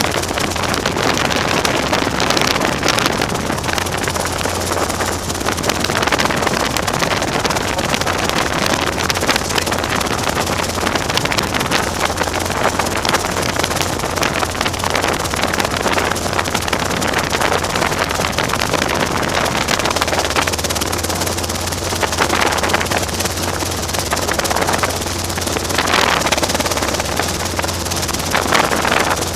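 Robinson R22 helicopter running steadily, its engine and rotor noise mixed with a rushing wind sound, with no change in level.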